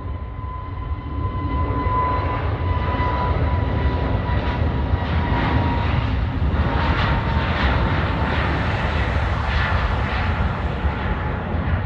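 Jet airliner passing close by: engines rumbling under a whine that falls slightly in pitch, the sound swelling to its loudest about two-thirds of the way through and easing near the end.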